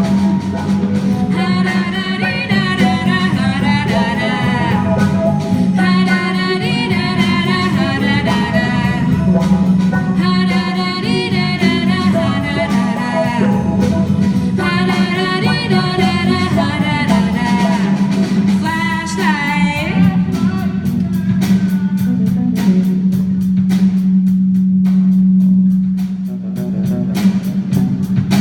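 Live band performance: a solo singer holds long notes with vibrato over guitar and drums, then the voice drops out about twenty seconds in and the band plays on with a steady beat.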